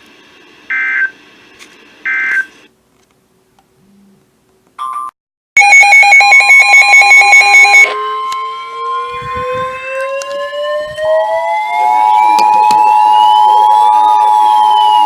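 NOAA Weather Radio EAS alert tones. Two end-of-message data bursts come about 1.5 s apart, then a pause, then loud pulsing receiver beeps at about four a second. After that a steady 1050 Hz warning alarm tone gives way to the two-tone 853/960 Hz EAS attention signal about 11 s in, while a warning siren winds up to a peak near 14 s and then starts winding down.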